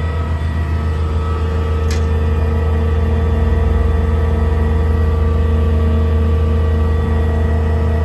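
Duramax diesel engine running steadily with the PTO engaged, driving the truck's hydraulic air compressor: a steady low hum with a higher whine over it. There is a single click about two seconds in.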